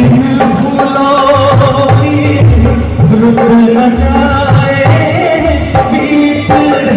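Live Hindi film song played by a band through stage PA speakers: keyboard melody over dholak and conga drumming with heavy bass beats, and a male singer singing into a microphone.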